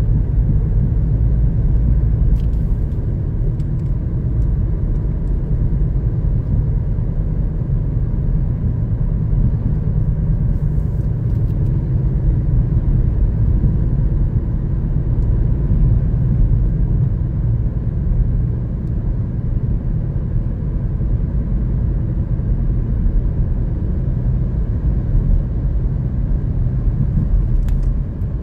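Steady low rumble of a car driving at a constant speed on a paved road: tyre and engine noise heard from inside the cabin.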